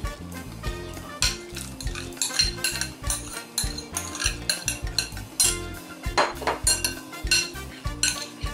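A metal spoon clinking and scraping against glass bowls as chopped vegetables are scraped out into a stainless-steel mixing bowl: a run of irregular clinks and knocks.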